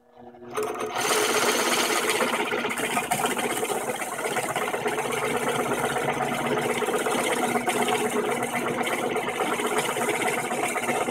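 Drill press running, its 1.5-inch bit boring through a 2x4 with a steady motor hum and cutting noise that starts about a second in.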